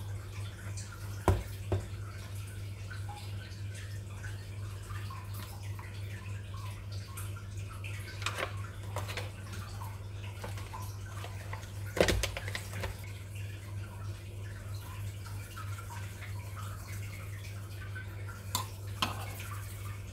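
Water bubbling and dripping over a steady low hum, with a few sharp clinks of kitchenware; the loudest clinks come about a second in and about twelve seconds in.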